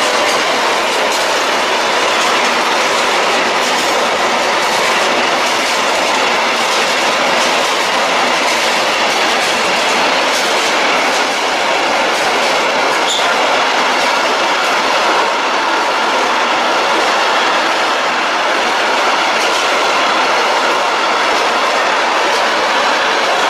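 Freight train of container and tank-container wagons rolling past: a loud, steady rush of wheels on rail, with a regular clickety-clack over the rail joints.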